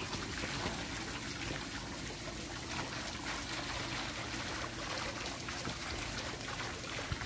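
Steady splashing and bubbling of water from the aeration boils in a lined shrimp pond.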